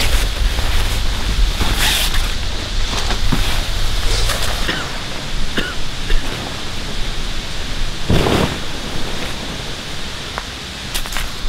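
OneTigris Conifer tent fabric rustling as it is pulled out of its bag and spread out over dry leaves, with several louder swishes as the sheet is flapped and dragged, the biggest about eight seconds in.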